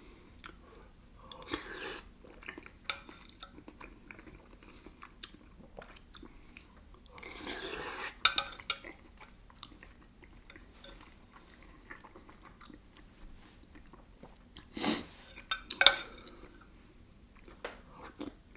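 A person eating canned chicken and dumplings: chewing, with scattered light clicks of a spoon against the bowl and a few louder bursts.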